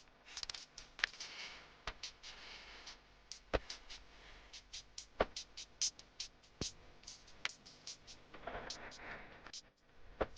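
Background music with sharp percussive clicks and beats.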